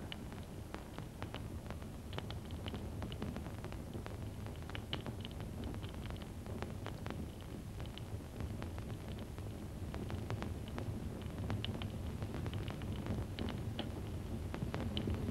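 Open fire burning in a hearth: irregular crackles and pops over a low, steady noise, growing a little louder in the last few seconds.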